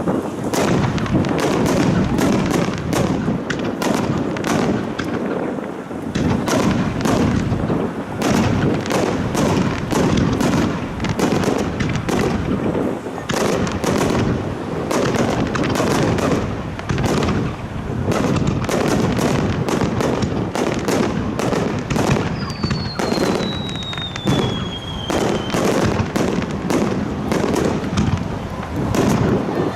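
Fireworks display: a rapid, unbroken barrage of shell bursts and crackling. About 22 seconds in, a whistle sounds for about three seconds, falling in pitch.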